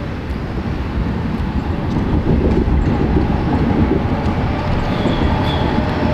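Tram running along street track toward the listener, a low rumble that grows louder about two seconds in.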